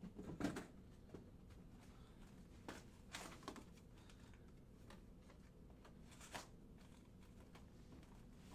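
Faint, scattered rustles and light clicks of trading cards and pack wrappers being handled, with near silence between.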